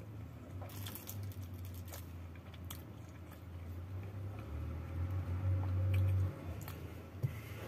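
Chewing and biting on a mouthful of flaky roti canai, with scattered small crackles and wet mouth clicks, a cluster of them about a second in. A low steady hum runs underneath.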